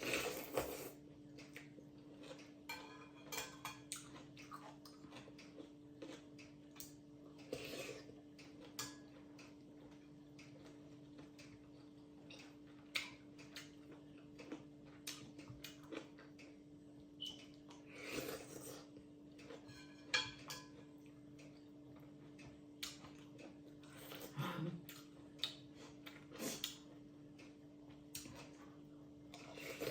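Eating noodles close to the microphone: scattered chewing and mouth sounds, with short clicks of utensils against a dish, over a steady low hum.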